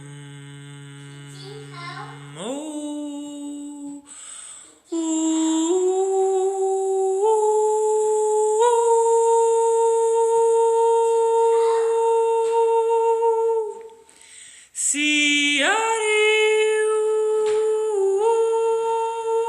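A woman's voice toning wordless long held notes, starting low and stepping upward in pitch, with a pause for breath twice.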